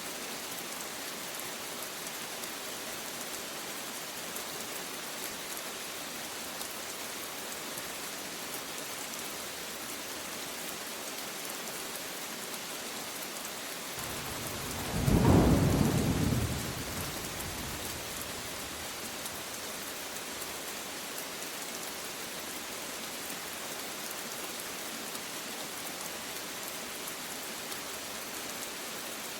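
Steady rain falling, with a single clap of thunder about halfway through that rumbles loudly for a couple of seconds and dies away.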